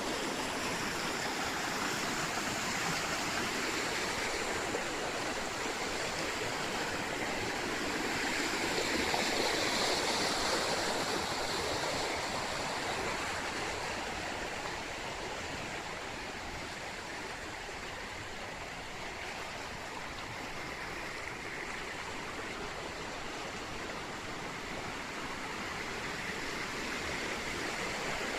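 Fast-flowing water rushing through river rapids: a steady, even rush that swells a little about nine seconds in and eases off slightly in the second half.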